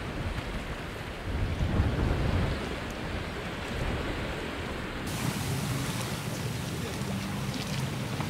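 Wind buffeting an outdoor microphone, a low rumbling roar that is strongest for a second or so near the start, over a steady hiss of wind and lapping water at the shore.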